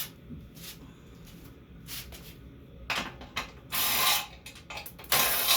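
A 13 mm socket ratchet clicking as a bracket bolt is worked loose: a few single clicks, then two quick runs of fast ratcheting near the end.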